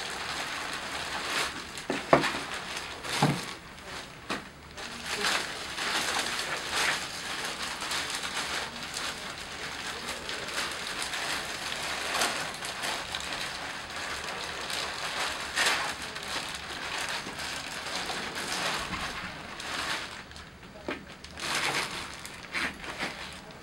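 Disposable plastic leg and shoe covers rustling and crinkling as they are pulled off and rolled up, with a couple of light knocks a few seconds in.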